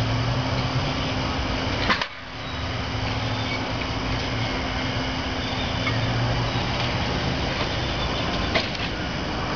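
Electric streetcar approaching slowly along the track: a steady running noise with a low hum, a sharp click about two seconds in after which the sound briefly drops away, and another click near the end.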